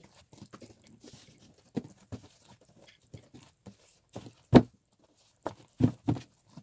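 Objects being picked up and set down on a desk: a scatter of light taps and knocks. The loudest knock comes about four and a half seconds in, and two more follow close together near the end.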